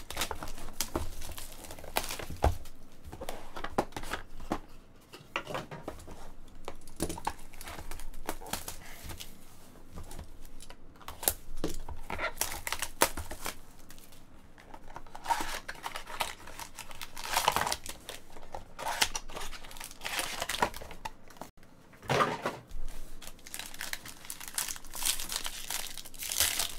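Plastic shrink wrap crinkling and tearing as it is stripped off trading-card boxes, in repeated bursts with small clicks of cardboard being handled. Near the end a foil card pack crinkles as it is torn open.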